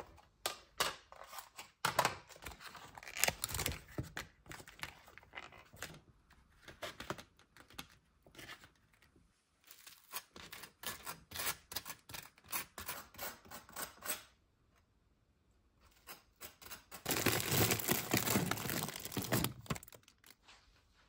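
Kitchen handling sounds: clicks and knocks of a plastic food container being opened, then a knife scraping butter across dry toast in quick rasping strokes. After a short lull, a few seconds of loud crinkling noise near the end.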